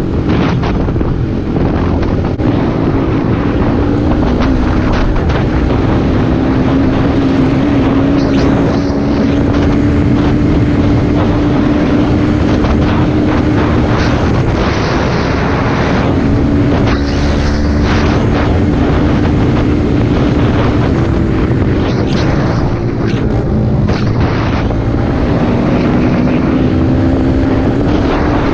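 Small dirt bike engine running at a steady cruising pace, its pitch easing slowly up and down with the throttle, with wind buffeting the on-board microphone.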